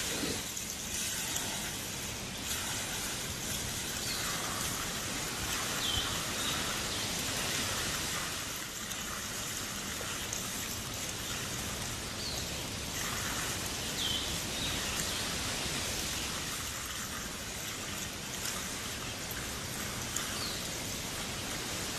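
Water overflowing the rim of a plastic stock tank, displaced by a tiger cub's body, pouring in a steady splashing patter onto the dirt. A bird gives a short falling chirp every few seconds.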